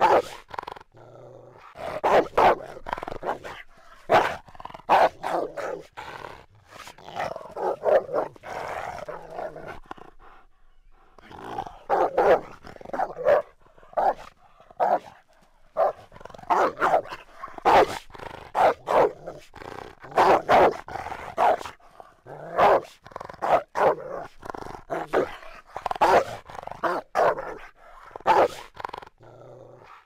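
Rottweiler barking in repeated bouts, mixed with growling, with a few short pauses between bouts.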